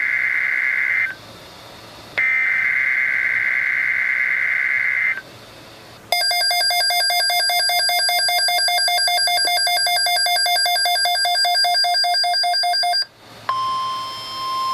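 EAS alert signals on NOAA Weather Radio: two screeching, warbling SAME digital header bursts, then about seven seconds of a rapidly pulsing electronic alarm beep. Near the end this gives way to the steady 1050 Hz warning alarm tone that comes before the spoken tornado watch.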